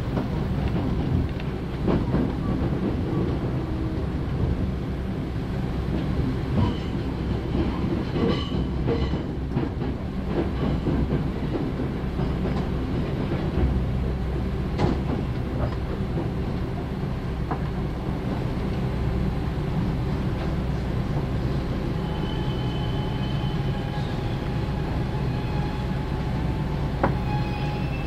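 JR Central 311 series electric train running, heard from inside the carriage: a steady rumble with wheels clicking over rail joints. Brief thin high-pitched tones come about eight seconds in and again a little after twenty seconds.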